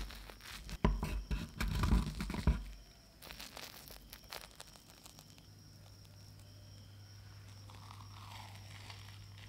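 Chopsticks pressing into a souffle omelette and tearing a piece off, the airy egg foam and browned crust giving a dense run of small crackles and clicks that are loudest in the first two and a half seconds. Fainter ticks follow, then a low steady hum.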